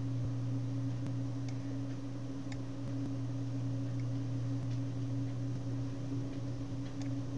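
Steady low hum from the recording setup, with a dozen faint, irregular clicks of a computer mouse as shapes are dragged on screen.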